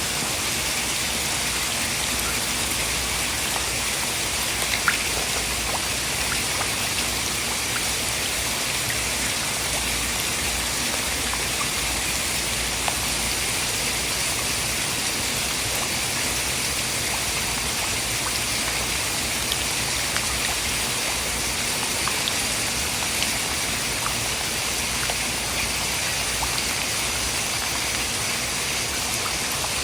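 Steady rain falling, an even hiss with scattered drop ticks, used as natural white noise.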